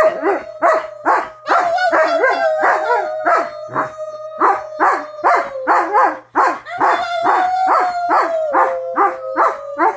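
Dog barking rapidly and repeatedly, about three barks a second, over a long, unbroken howl-like tone.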